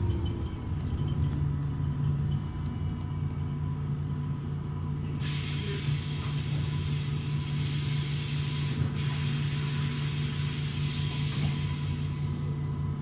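MAN Lion's City city bus's diesel engine idling steadily, with a long hiss of compressed air starting about five seconds in and lasting about seven seconds, growing louder twice along the way.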